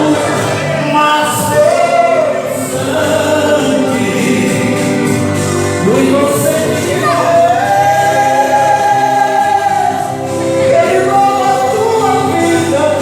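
A church praise group of several voices singing a gospel worship song together over a steady instrumental backing.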